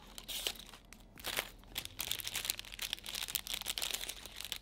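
Clear plastic bags of LEGO pieces crinkling irregularly as they are pulled out of a cardboard box and handled.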